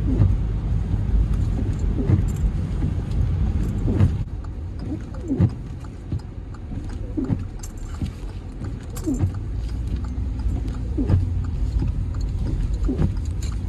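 Steady low rumble of a car's engine and tyres on a wet, icy road, heard from inside the cabin while driving, with a short sweeping sound repeating about every two seconds.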